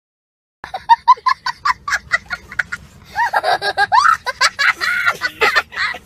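High-pitched laughter in quick repeated bursts, starting about half a second in, then going on in longer, wavering peals.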